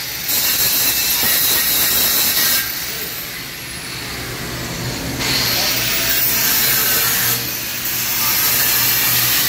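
Angle grinder grinding a steel pipe in three bursts, with quieter spells between them in which the motor's whine drops as it coasts down, then climbs again as it spins back up.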